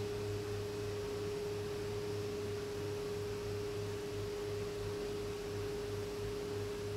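A single steady pure tone held at one pitch, with a faint low pulsing beneath it; the tone cuts off near the end.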